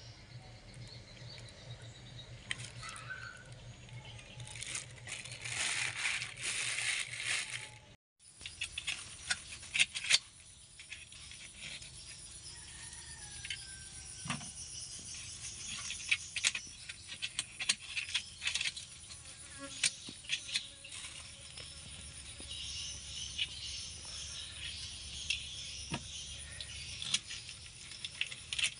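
Plastic bag crinkling and scattered sharp clicks and ticks as a cut red arowana is handled on the bag. Near the end a knife starts scraping at the fish's large scales.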